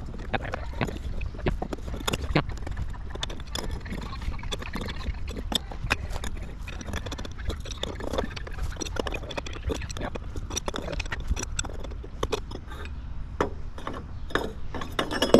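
Irregular metal clicks and knocks from hands working the lawn mower's aftermarket muffler off its exhaust pipe to turn it, over a low rumble.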